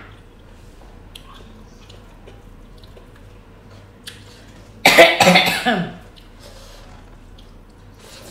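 A woman coughs: a loud, quick run of several coughs lasting about a second, about five seconds in.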